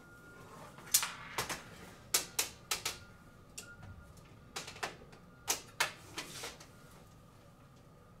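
Metal frames of stained-glass light panels clicking and knocking against each other as a small end panel's screws are lined up with a long panel. About a dozen sharp clicks come in pairs and small clusters; the loudest is about a second in, and they stop about two-thirds of the way through.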